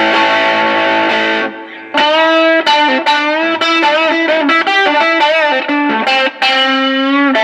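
Fender American Special Stratocaster played through a Mooer Solo distortion pedal into a Bugera V22 tube amp, with a lot of distortion. A distorted chord rings for about a second and a half, then a lead line of single notes with string bends, ending on a held note.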